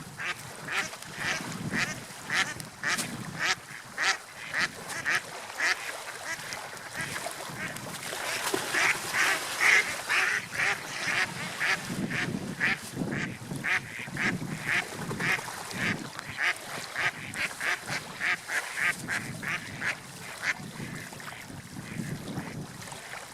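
Waterfowl calling over and over in a quick series, about two to three calls a second, over a low background rush; the calls die away near the end.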